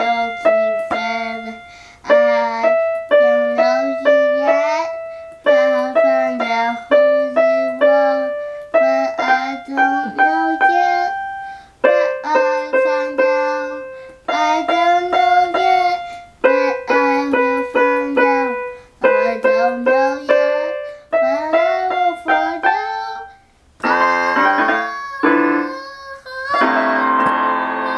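A child singing along while playing a small electronic toy keyboard, in short phrases of notes every couple of seconds. About 24 seconds in, the keyboard changes to a fuller, more sustained sound.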